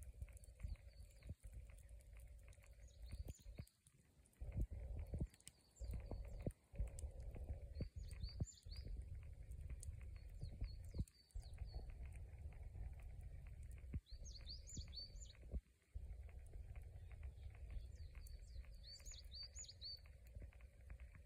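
Small birds chirping in short clusters every few seconds over a low, uneven rumble that cuts out abruptly now and then. Faint scattered crackles come from the smouldering campfire.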